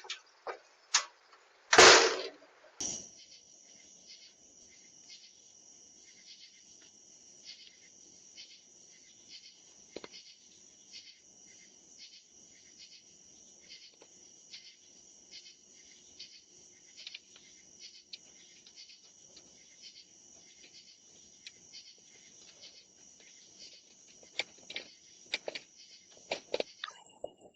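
A loud burst of noise about two seconds in. Then faint, steady, high-pitched insect chirping, pulsing about twice a second, with a few clicks near the end.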